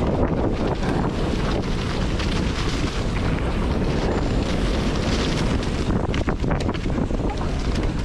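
Wind buffeting the microphone during a fast downhill mountain-bike descent, with the bike rattling over rough trail; a cluster of sharp clicks and knocks about six to seven seconds in.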